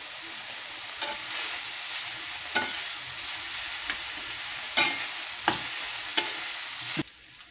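Diced vegetables and ginger-garlic paste sizzling in hot oil in a metal karahi as they are stirred with a spatula. The spatula knocks against the pan about six times, and the sizzle drops away suddenly near the end.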